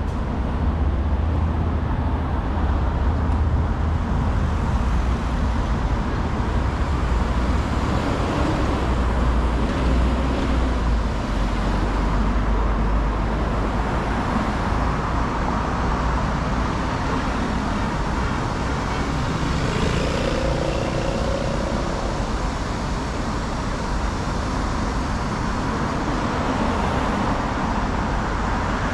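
Steady city road traffic, cars passing close by with a constant low rumble; a passing vehicle adds a brief engine note about twenty seconds in.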